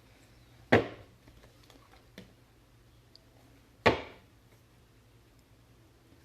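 Two sharp knocks on a hard surface about three seconds apart, with a fainter tap between them.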